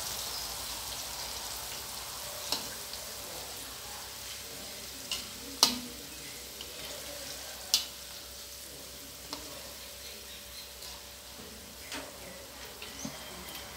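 Wontons deep-frying in oil in a stainless steel wok: a steady sizzling hiss that slowly eases, with about seven sharp clinks of the metal spatula against the wok as they are stirred, the loudest about halfway through.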